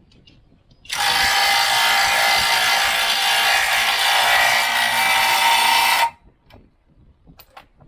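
Small cordless impact wrench running for about five seconds, starting about a second in and stopping suddenly, as it tightens a ball-joint nut on the steering knuckle.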